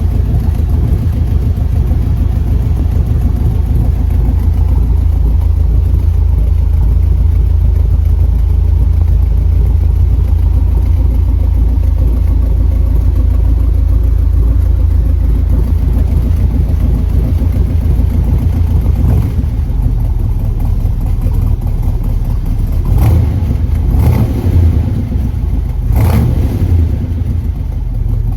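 1967 Corvette's freshly tuned 327 small-block V8 (350 hp) running steadily. Near the end the throttle is blipped three times in quick, short revs.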